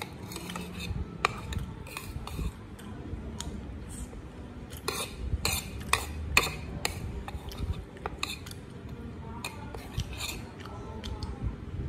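Metal spoon scraping and clinking against a porcelain plate while scooping up rice. It is a string of short clicks and scrapes, with a run of sharper strikes about halfway through.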